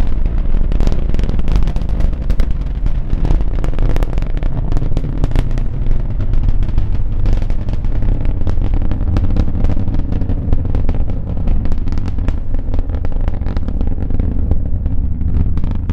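Space Shuttle Endeavour's launch roar during ascent, from its solid rocket boosters and main engines: a loud, deep, continuous rumble laced with dense crackling. The upper part of the sound thins a little toward the end.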